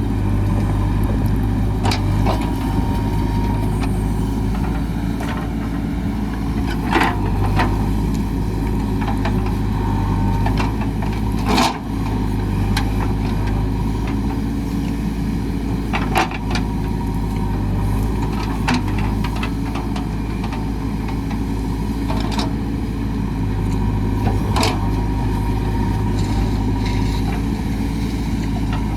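JCB 3DX backhoe loader's diesel engine running steadily under working load, with several short sharp knocks and cracks over the top.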